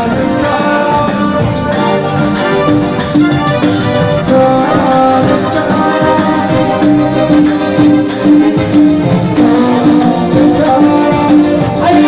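Live Algerian rai music played loud: an electronic keyboard plays a melody of held notes over a fast, steady percussion beat.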